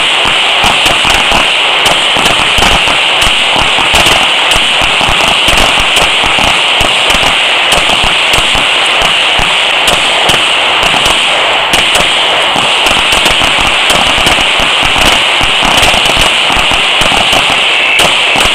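Several handguns firing rapidly at once along a firing line, the shots overlapping into a loud, near-continuous crackle of gunfire.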